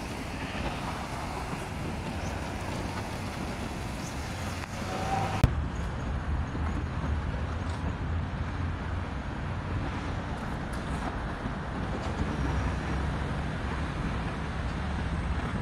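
Steady road traffic noise of cars passing on a busy multi-lane road, with a strong low rumble underneath. A sharp click about five seconds in, where the recording cuts.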